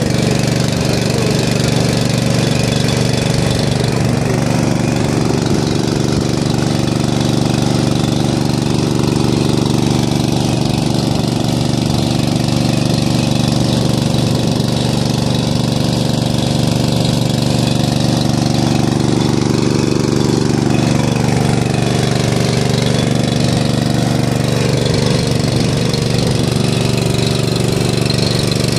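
Briggs & Stratton petrol engine of a floating fire pump running steadily, throttled up and driving the pump's single-stage centrifugal impeller.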